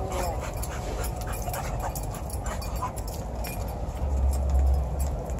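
A dog whining in short high glides near the start, with another brief whine nearly three seconds in. A low rumble, about four seconds in, is the loudest sound.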